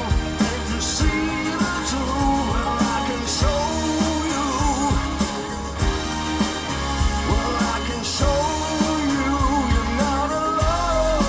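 Pop song with a lead vocal over a bass line and a steady drum beat.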